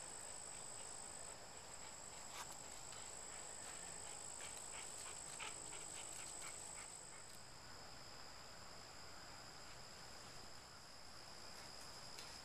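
Faint, steady, high-pitched insect trill that shifts to a lower pitch about halfway through, with a few faint clicks in the first half.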